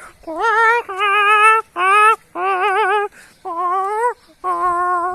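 A man's vocal imitation of a hen shivering with cold ('galinha com frio'): about six high, quavering calls in a row, each wobbling rapidly in pitch like chattering teeth.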